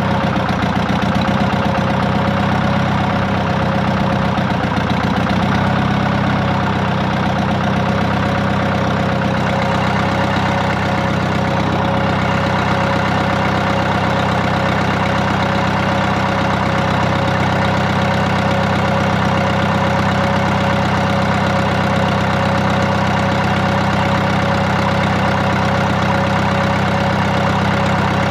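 AGCO Allis 5680 tractor's four-cylinder diesel engine idling, freshly rebuilt with new rings, head gasket and rebuilt Bosch injectors, and firing on all four cylinders. Its speed wavers slightly for the first few seconds, then settles to a steady idle.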